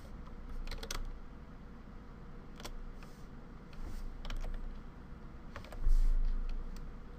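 Scattered clicks of a computer keyboard and mouse, with a dull low thump about six seconds in.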